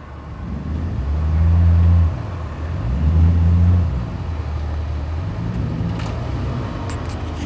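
The 4.0-litre straight-six of a Jeep Grand Cherokee WJ revs under load as it crawls through muddy ruts. It revs up in two strong pulses of about a second each, then makes a smaller rise near the end.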